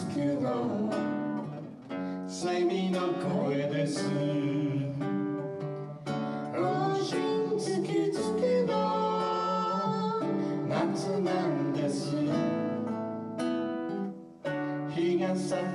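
Acoustic guitar strummed, with singing over it.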